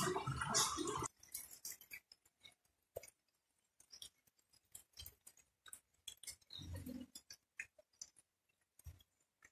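Domestic pigs rooting and chewing in wet mud: scattered small wet clicks and smacks, with a short low grunt about seven seconds in. A louder stretch of noise in the first second stops abruptly.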